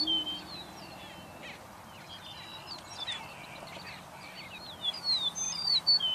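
Greater prairie chickens calling on their spring lek: a low hooting boom tails off at the start, followed by scattered cackling calls. A songbird's clear whistled song, sliding downward, comes twice, once near the start and again about five seconds in, and is the loudest sound.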